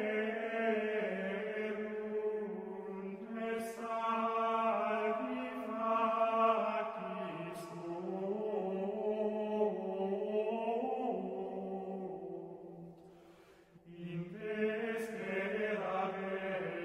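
A slow vocal chant, sung in long held notes. It fades out about thirteen seconds in and starts again a second later.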